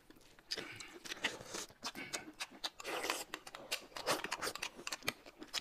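Close-miked eating sounds from two people eating noodles and spooning a drink: many sharp wet mouth clicks and smacks, with a few short slurps.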